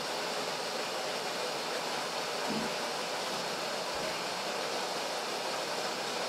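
Steady, even fan-like hiss of background noise that does not change.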